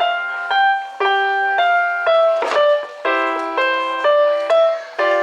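A keyboard instrument playing a melody with chords, a new note or chord about twice a second.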